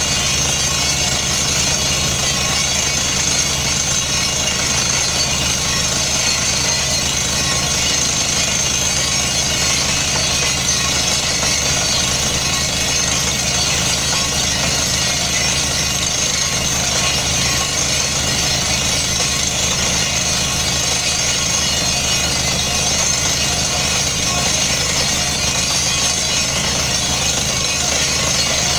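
Truck-mounted borehole drilling rig air-drilling a water well: a steady, heavy engine-and-compressor drone under a loud hiss of compressed air blowing cuttings and dust out of the hole.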